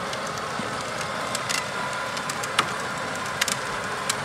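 A child's ride-on kart towing a plastic wagon, rolling over asphalt: a steady rolling hiss of hard plastic wheels on the pavement, with a faint steady hum and scattered clicks and rattles.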